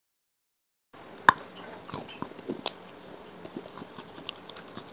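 Close-up mouth sounds of biting and chewing: scattered sharp clicks and small crunches, starting about a second in, with one loud click soon after.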